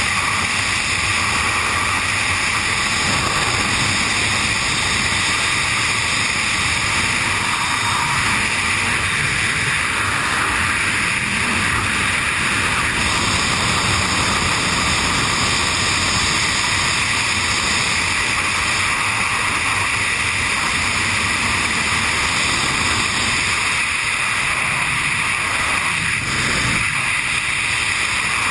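Steady, loud rush of air buffeting a GoPro camera during wingsuit flight, with no letup.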